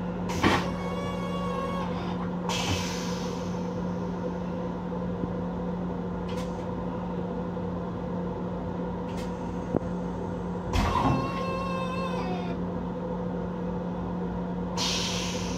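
Steady low hum inside the restroom of an MTA Long Island Rail Road M7 electric railcar. A clunk about half a second in and another a little past ten seconds are each followed by a brief squeal, and there are short hisses near two and a half seconds and again at the end.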